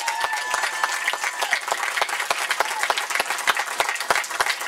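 Crowd applauding: many people clapping at once in a dense, steady patter.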